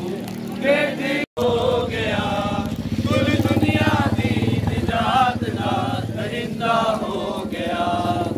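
A group of voices singing a hymn together in unison, phrase after phrase, over a steady low hum. The audio drops out completely for a split second just over a second in.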